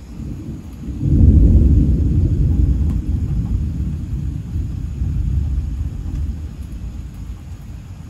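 Rolling thunder: a deep rumble that swells sharply about a second in, then slowly fades over several seconds.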